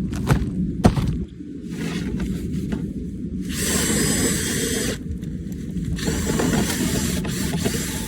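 Dryer vent cleaning tools working in the vent duct, with a steady low vacuum drone underneath. Two sharp knocks come within the first second, followed by stretches of rattling, scraping noise.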